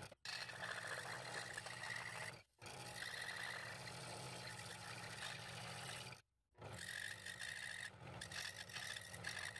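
Scroll saw running and cutting through stacked 1/8-inch walnut: a steady motor hum under the blade's higher cutting noise. The sound drops out completely for a moment three times.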